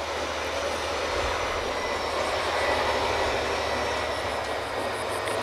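Drilling rig machinery running: a steady low hum under a broad rushing noise, with a faint high whine.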